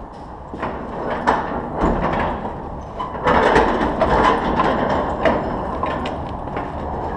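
Heavy wooden door being shoved open, scraping and rattling with scattered knocks, loudest from about three seconds in.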